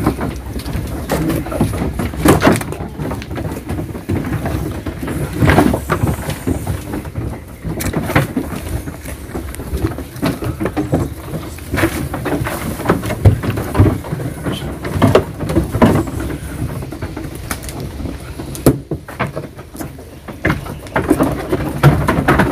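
Goats eating silage at wooden pen troughs, with rustling as feed is handed out from a plastic tub and sharp knocks every few seconds against the wooden boards.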